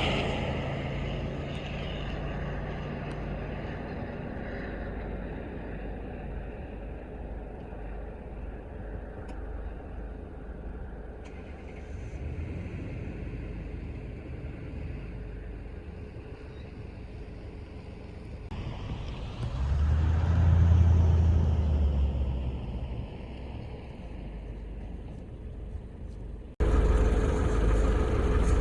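Road vehicle noise: a steady low rumble of a motor vehicle on the move. A louder engine swell comes about twenty seconds in. Near the end the sound cuts abruptly to a louder rumble.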